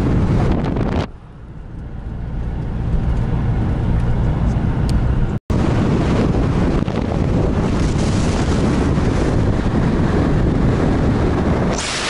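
Wind buffeting the microphone over the road and engine noise of a car driving at speed. The sound dips sharply about a second in, cuts out for an instant near the middle, and a brighter hissing rush swells near the end.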